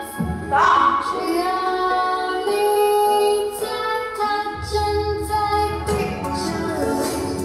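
Mandarin pop song with a high female lead vocal. The low bass drops out near the start and comes back about four and a half seconds in.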